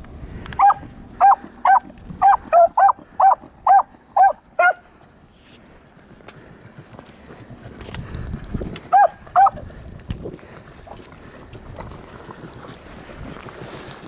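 Beagles baying on a rabbit's trail: a quick run of about ten short yelping bays, roughly two a second, then a pause and two more bays.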